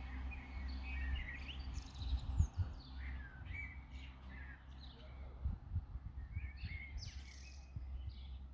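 Small birds chirping and twittering in short, repeated calls. Under them runs a steady low rumble with a few dull thumps, the loudest about two and a half seconds in.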